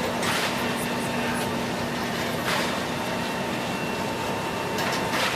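Liebherr R944C hydraulic excavator's diesel engine running steadily as it works a rubble pile, with several short crashes of debris.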